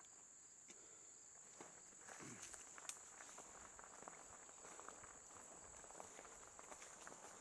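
Faint, steady, high-pitched drone of crickets. From about two seconds in, scattered light crackling of leaves and twigs on the trail.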